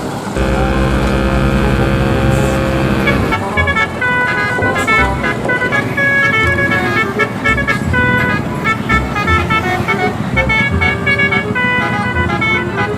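Multi-tone 'telolet' bus horn over a running engine: a held chord for about three seconds, then a quick tune of short horn notes hopping between pitches.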